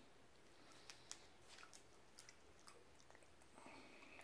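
Near silence with a few faint, scattered crinkles and ticks of plastic meat-stick wrappers being picked and pulled at by hand, not yet torn open.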